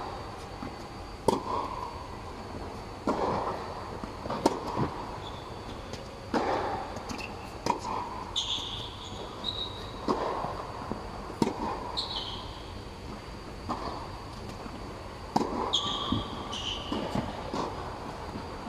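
Tennis ball struck by rackets and bouncing on a hard indoor court during a rally: a string of sharp pops and thuds at uneven intervals, each with a short echo, along with a few short high squeaks.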